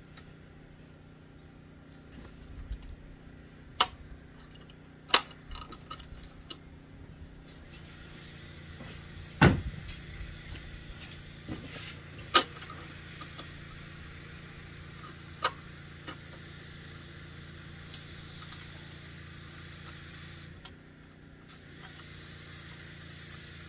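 Scattered sharp clicks and light metallic rattles from the throttle cable and linkage on the engine being handled and worked free of the mounting bracket, over a steady low hum in the background.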